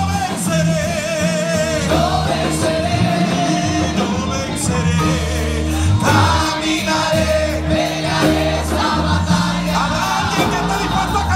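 Live gospel worship song: a group of men and women singing together into microphones over a live band with bass and drums.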